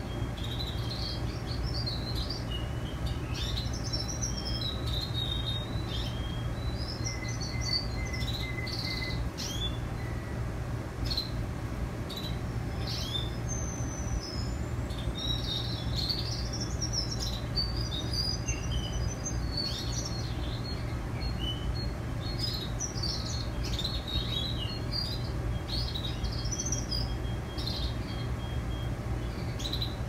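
Young male Russian canaries singing: a continual run of varied chirps and trills, with a few held whistled notes, over a steady low hum.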